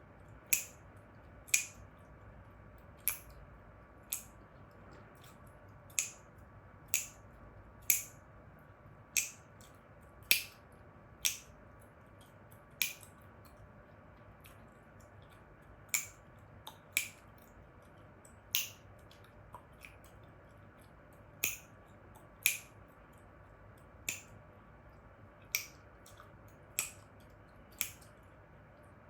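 Chewing gum snapped and cracked in the mouth close to the microphone: about twenty sharp, crisp pops at an uneven pace of roughly one a second, with a pause of a few seconds near the middle.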